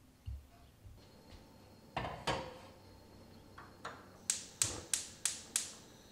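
Gas hob's electric spark igniter clicking five times, about three clicks a second, until the burner under the enamel kettle lights. Two knocks on the hob come a couple of seconds before.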